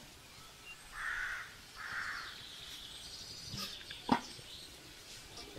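A crow cawing twice, two harsh calls about a second apart, with faint high bird chirps behind. A single sharp knock comes near the end.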